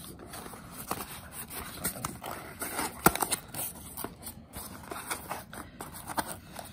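A small cardboard box being opened by hand: its tucked flaps scraping and rustling as they are pried apart, with scattered clicks and one sharp snap about three seconds in.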